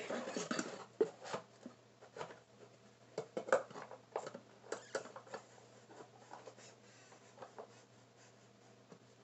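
Hands fitting small speakers into a cardboard box: scattered light knocks, taps and scrapes, fewer after about five seconds.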